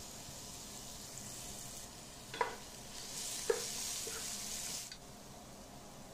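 Sliced onions sizzling in oil in a non-stick pot while a wooden spatula stirs them. There are two short knocks of the spatula against the pot about a second apart, and the sizzle grows louder for about two seconds as the onions are turned.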